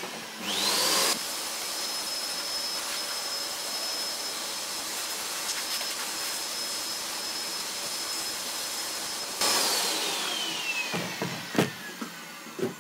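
Vacuum cleaner sucking dust out of an opened amplifier chassis through a hose nozzle. Its motor whine climbs to a steady high pitch about half a second in, then winds down with a falling whine after it is switched off near the end, where a few knocks are heard.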